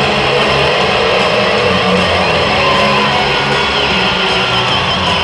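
Loud arena crowd noise mixed with a wrestler's guitar-rock entrance music playing over the arena speakers.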